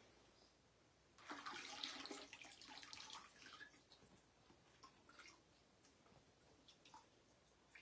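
Faint running water for about two seconds, rinsing the excess acrylic paint off a freshly water-marbled hat, followed by a few light clicks.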